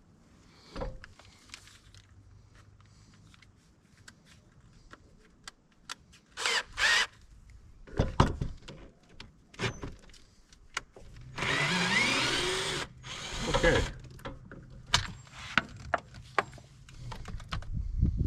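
A cordless drill-driver running in short bursts, with one longer run a little past the middle, as it works at the Phillips-head screws holding an RV entry-door handrail. Clicks and knocks of the tool and rail come between the bursts.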